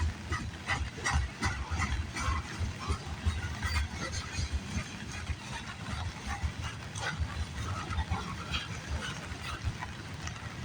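Freight cars of a CN mixed freight rolling past, with an uneven low rumble and many irregular clicks and clatters from the wheels on the rail.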